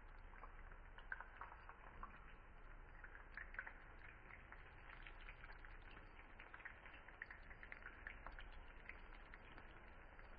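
Dough pieces deep-frying in hot oil in a frying pan: a faint, steady sizzle speckled with many small crackling pops.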